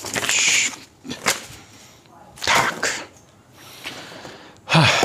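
Headphone box packaging and papers being handled: a few short rustles and a sharp click, with a brief vocal sound near the end.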